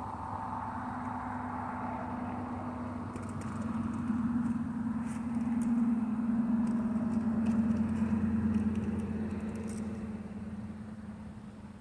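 A car engine running with a steady low hum. It grows louder about four seconds in and fades away toward the end.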